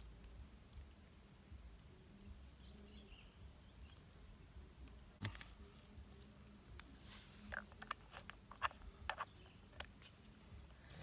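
Quiet outdoor background with faint high chirping, then a handful of light clicks and taps from about halfway: the plastic funnel being set down and the chainsaw's plastic filler cap being handled.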